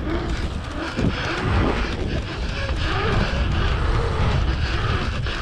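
Wheels rolling fast over an asphalt pumptrack, with a steady low rumble and wind buffeting the moving camera's microphone.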